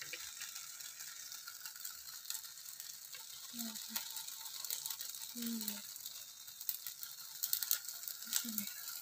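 Banana-leaf parcels grilling directly over a gas stove flame: a steady hiss with sizzling and crackling from the scorching leaves, the crackles coming more often in the last few seconds.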